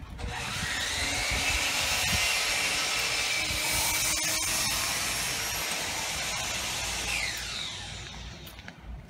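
A small motor runs with a high whine over a rushing noise. The whine rises in pitch at the start and falls away about seven seconds in, and the sound then fades.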